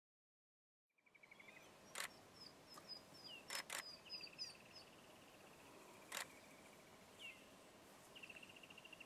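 Faint birdsong starting about a second in: high chirps and slightly falling trills, repeated several times, with four sharp clicks scattered through it.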